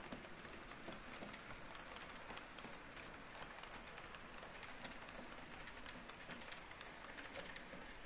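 Model railway freight wagons rolling along the track: a faint, rapid, uneven clicking of small wheels over the rail joints, which thins out near the end as the last wagon passes.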